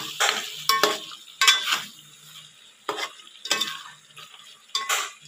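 A steel spoon stirring chicken curry in a metal pot: about seven irregular scrapes and clinks of the spoon against the pot's side, a couple of them ringing briefly.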